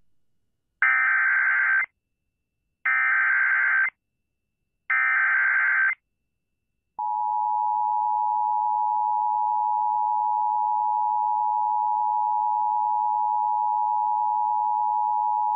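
Emergency Alert System activation tones announcing a severe thunderstorm warning. Three one-second bursts of buzzing digital header data, about a second apart, come first. About seven seconds in, the steady two-tone attention signal (853 and 960 Hz sounded together) starts and holds.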